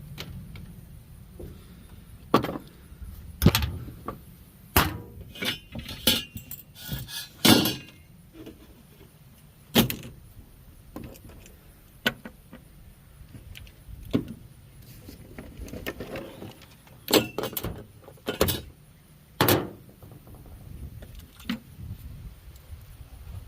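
Irregular metal clanks, knocks and clinks from scrap being handled or worked on, a dozen or so sharp strikes at uneven spacing, busiest about five to eight seconds in.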